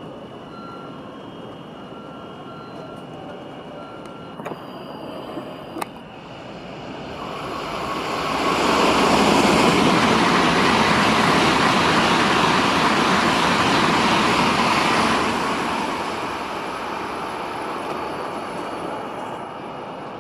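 Tokaido Shinkansen train passing through the station at speed without stopping: a rush of noise that swells over about two seconds, stays loud for about seven, then dies away to a low rumble.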